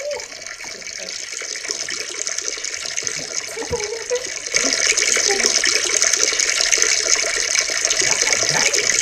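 Water running, a steady rushing hiss that steps up louder about four and a half seconds in.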